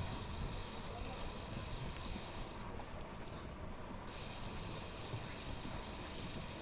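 Street noise of a bicycle ride, with wind rumbling on the action camera's microphone. A steady high hiss sits over it and cuts out abruptly for about a second and a half midway.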